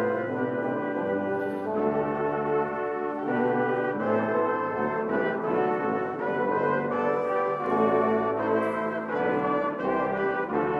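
Brass ensemble playing slow, sustained chords in a cathedral, the harmony changing about once a second.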